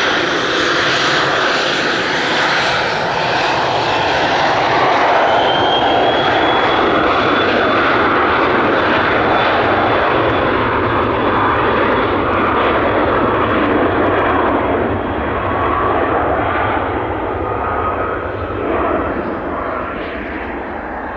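Cessna Citation XL's twin turbofan engines at takeoff power as the jet departs: a loud, steady roar with a thin high turbine whine, easing off in the last few seconds.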